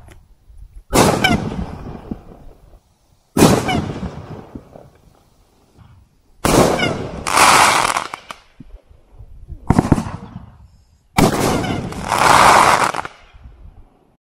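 A 'Juggernaut' 500-gram consumer firework cake firing five loud shots, two to three seconds apart. Each shot is followed by a fading tail of sound from the bursting effect.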